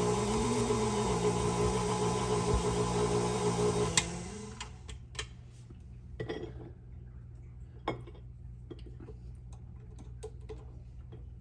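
KitchenAid stand mixer motor running with the Spiralizer Plus attachment slicing and coring a carrot: a steady hum whose pitch rises and falls. About four seconds in it is switched off with a click, followed by light clicks and knocks from handling the attachment and carrot pieces.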